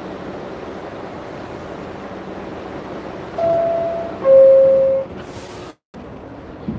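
New York City subway car's two-note descending door chime, a higher tone about three and a half seconds in and a louder lower one right after, over the steady rumble of the car; the chime signals the doors are about to close. A short hiss follows, and the sound cuts out for a moment near the end.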